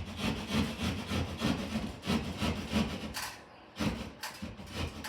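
Hand drywall saw cutting through sheetrock in quick up-and-down strokes, about four or five a second, with a brief pause a little past the middle.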